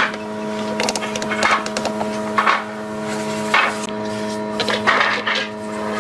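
Wooden parts being handled and worked, giving short scraping or rubbing sounds about once a second over a steady electrical hum.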